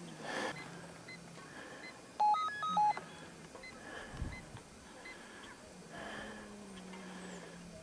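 A quick run of about six short electronic beeps at changing pitches, like a phone's keypad or alert tones, lasting under a second a little over two seconds in. A faint low hum and soft background noise run under it.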